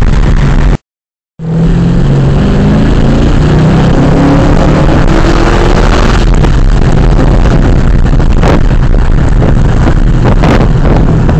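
Holden VE Commodore SS V Redline's V8 through a KPM 2.5-inch cat-back exhaust, very loud, accelerating hard: its note climbs steadily for several seconds, then holds. The sound cuts out briefly about a second in.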